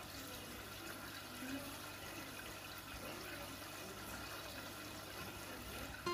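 Steady, faint rush of moving water in an aquarium, like a filter or aeration running.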